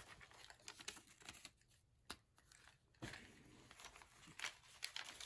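Faint rustling and soft clicks of stiff paper pages and tags being handled and turned in a handmade journal, dropping to almost nothing for a second or so in the middle.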